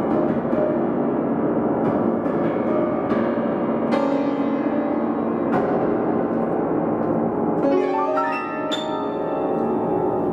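Solo piano playing heavy, pedal-sustained chords that ring like bells, a new chord struck every second or two. Near the end comes a quick run of higher notes.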